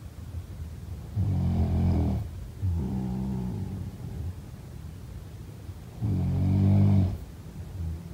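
A person snoring in slow breaths: a loud snore about a second in, a softer one straight after it, and another loud snore about six seconds in.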